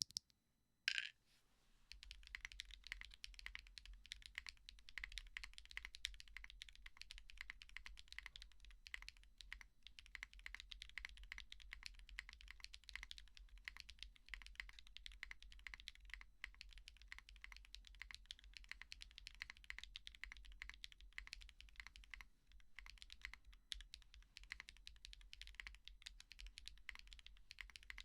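Mechanical keyboard fitted with Gateron Type R tactile switches being typed on, a steady stream of quick keystrokes. It starts about two seconds in after a single louder clack, and has brief gaps now and then.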